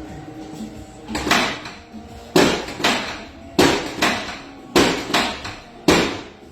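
Chiropractic adjustment thrusts on a treatment table: five sharp thuds about a second apart, each followed by a smaller knock.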